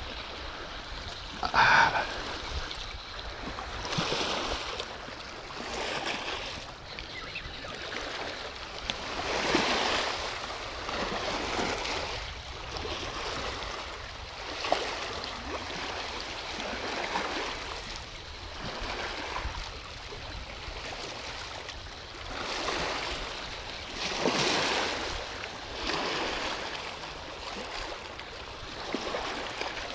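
River water lapping against the bank in small waves, swelling and fading about every two seconds.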